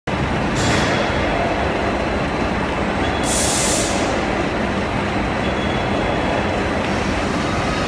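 Steady loud industrial rumble and noise, with a short hiss about half a second in and a longer, louder hiss about three seconds in.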